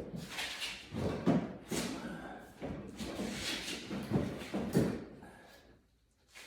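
Repeated thuds, knocks and scrapes as a snowmobile fuel tank is worked into place by hand. The handling noises die away about a second before the end.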